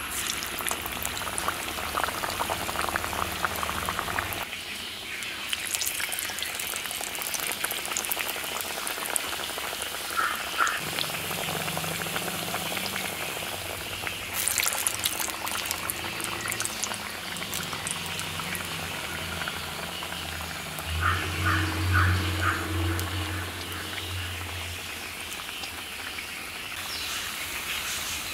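Vada batter deep-frying in hot oil in a cast-iron kadai: a steady sizzle and bubbling, with louder crackling spells at times. A low hum swells briefly about three-quarters of the way through.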